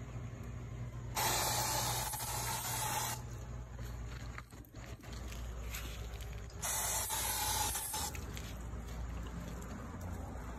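Aerosol insecticide can spraying into the stone wall in two hissing bursts, the first about two seconds long and the second about a second and a half, several seconds apart.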